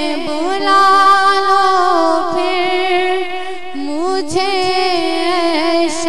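A naat, an Urdu devotional song, sung by a solo voice that holds long, ornamented notes with no clear words.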